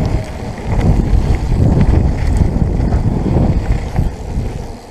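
Wind buffeting the microphone over the rumble of mountain bike tyres rolling fast down a dirt and gravel trail: a loud, low, steady noise with a few small clicks and rattles.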